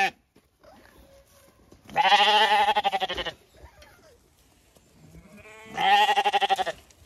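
Zwartbles lambs bleating close by: two loud, quavering bleats, the first about two seconds in and lasting over a second, the second shorter, near the end.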